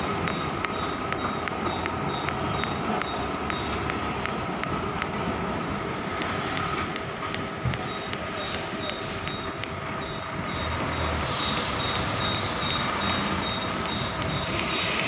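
Diesel engines of container trucks running steadily, with a steady high whine and a light regular ticking.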